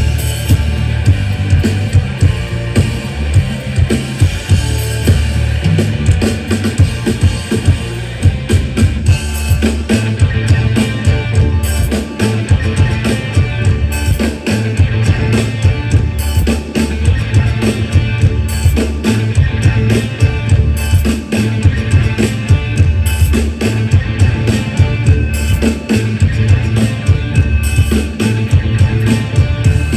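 A mor lam band playing an instrumental passage through a large PA sound system during a sound check: drum kit with a heavy kick drum, bass and electric guitar, in a steady pulsing groove.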